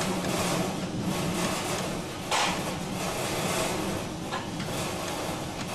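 Ex-Melbourne W2-class streetcar running along street track: a steady rumble of the car and its wheels on the rails, with a sharp clatter about two and a half seconds in and a lighter knock about four seconds in.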